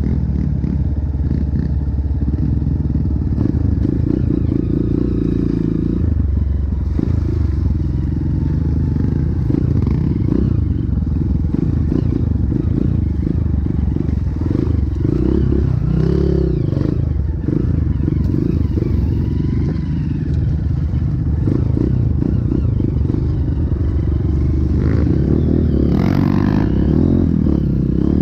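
Dirt bike engine running under way on the trail, its pitch rising and falling as the throttle changes, with knocks and rattles from the bike over the ruts.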